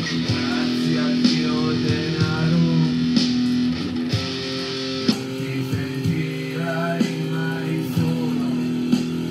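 Electric guitar played with held, ringing chords, struck again about once a second.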